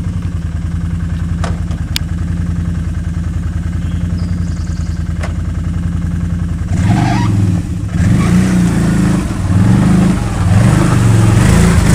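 ATV engine idling steadily, then revving up about seven seconds in as the quad pulls away, louder, its pitch rising and falling with the throttle.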